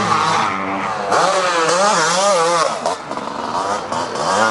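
Enduro motorcycle engine revving hard, its pitch rising and falling with quick throttle changes, easing off about three seconds in.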